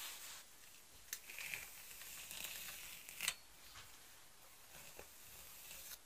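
A hairbrush stroking through the long hair of a mannequin head: soft, faint brushing swishes, with sharper clicks about a second in and again a little after three seconds.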